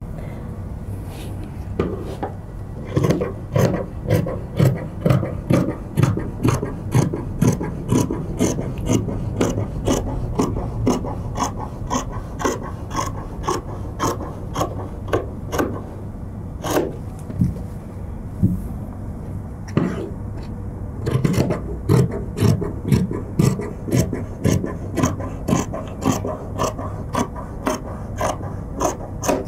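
Scissors cutting a stripe from loosely woven checked fabric, snipping about twice a second. The snipping thins to a few single cuts about halfway through, then resumes steadily.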